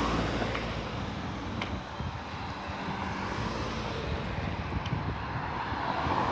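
Minivan driving up and passing close by, its engine and tyres growing louder to a peak near the end, over a steady low rumble of street noise.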